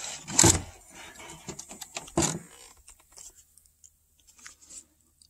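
Handling noise: two knocks, about half a second and two seconds in, with light rattling clicks between them, then it goes almost quiet.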